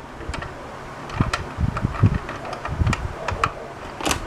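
Light scattered clicks and knocks of plastic toy cash register pieces being handled, with a few soft low thumps about one to three seconds in.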